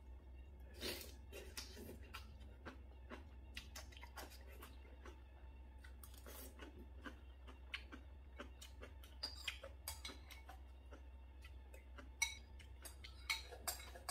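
Quiet eating sounds: chewing and slurping of rice in beef bone broth with kimchi, with many short light clicks of a spoon against a porcelain bowl over a steady low hum. Near the end come a few louder slurps as the broth is drunk from the bowl.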